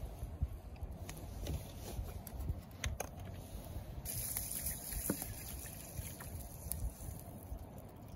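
Water poured from a plastic bottle into an aluminium Trangia mess tin, starting about halfway through as a steady hissing pour. A wood fire crackles with scattered pops throughout.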